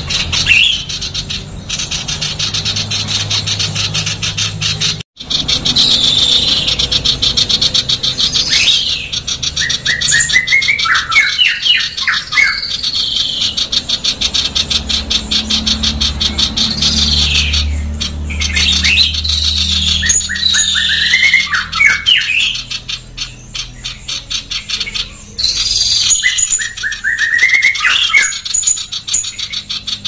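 Female common iora calling: a fast, dense, harsh run of high chattering notes, broken three times by a wavering lower phrase, over a low steady hum.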